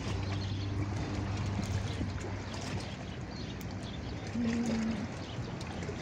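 Choppy water lapping and washing against a rocky shore. A low steady hum runs under it for about the first half, and a short higher tone sounds about two-thirds of the way through.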